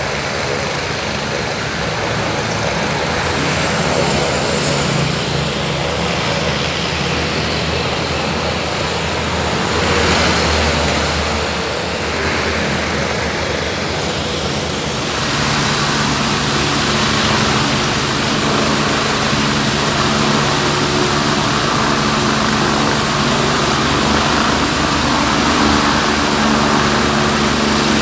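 Road traffic with motorbikes and cars passing, mixed with a helicopter warming up on the ground. About halfway through the noise turns into a steadier engine hum.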